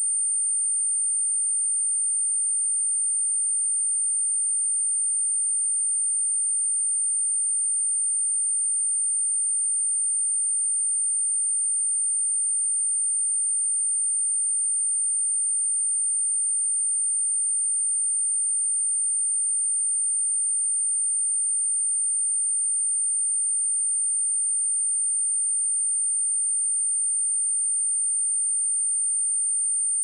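A continuous, steady, high-pitched pure sine tone at 8947 Hz, a synthetic speaker test tone held at one pitch and level.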